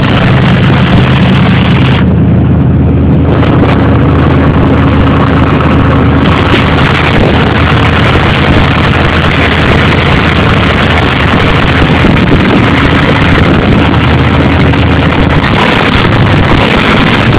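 Engine fed by a 1968 Carter AVS four-barrel carburetor idling steadily, heard close up under the hood.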